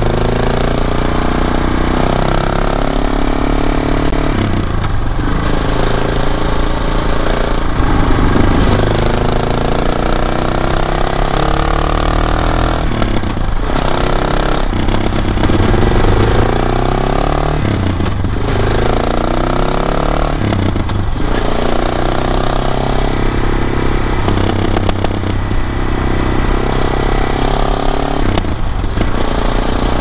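Suzuki DR650's single-cylinder four-stroke engine running through a Lexx MXe slip-on exhaust with the spark arrestor in, under way on the road. The engine note climbs and falls repeatedly, dipping briefly every few seconds.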